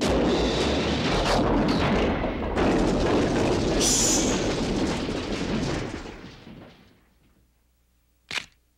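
Cartoon sound effect: a loud, rumbling noise with no clear tone that fades out over about seven seconds, then near silence broken by one short, sharp click.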